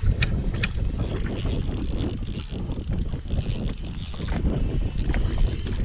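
Fishing reel being cranked in short spells, its gears giving a high whine that starts and stops several times, with a few clicks. Heavy wind noise buffets the microphone throughout.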